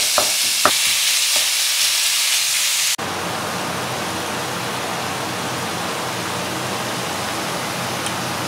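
Ground beef and onion sizzling in a frying pan, with a few sharp knocks of a spatula against the pan in the first second or so as the mince is broken up. About three seconds in, the sound cuts to a duller, steady hiss of the meat frying.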